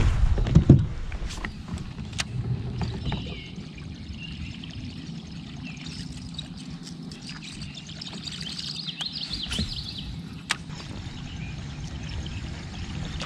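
Handling noise on a fishing kayak: a low thump about half a second in, then scattered light clicks and knocks of gear against the hull, over a low haze of water. Faint bird chirps come and go in the background.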